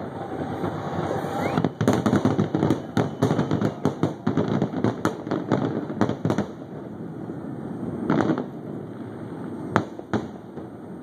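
Aerial fireworks bursting: a rapid string of bangs and crackles for several seconds, then a single burst about eight seconds in and one sharp bang near the end.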